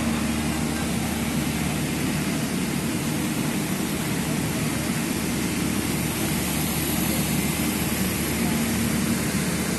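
Engine-driven water pump running steadily, a constant low drone, under an even rushing of water.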